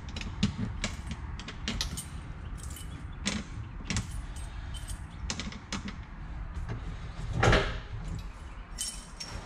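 Keys jangling with scattered light clicks and knocks of metal as hands work under a food truck's dashboard, and one louder, longer clunk about seven and a half seconds in.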